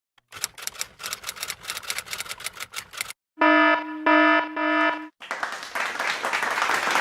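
A run of quick, irregular clicks lasting about three seconds, then a loud electronic buzzer in a few short pulses, then a steady noisy hiss.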